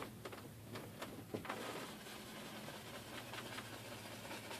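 Paint bristle brush rubbing and dabbing on canvas: a few light taps in the first second and a half, then a faint steady scratchy scrubbing as white paint is worked in for mist.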